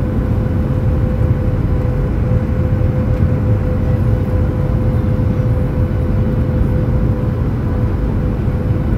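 Jet airliner cabin noise on final approach: a loud, steady rumble of engines and rushing air, with a constant whine held underneath.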